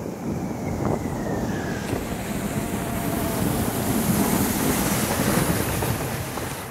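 Snow tube sliding fast down a packed-snow run: a steady rush of wind on the microphone mixed with the hiss of the tube over the snow, easing off slightly near the end as the ride slows.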